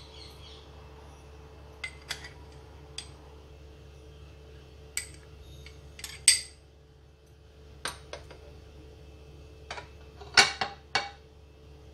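Metal spoon clinking and tapping against porcelain bowls while sugar is scraped out and shared between two bowls of sauce: about a dozen sharp clinks at irregular spacing, the loudest a little past halfway and a quick cluster near the end.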